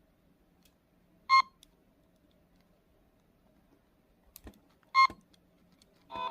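Two short electronic beeps about three and a half seconds apart, each a single bright tone, from a Takara Tomy 人生時計 toy alarm clock. A faint click comes just before the second beep, and an electronic melody starts right at the end.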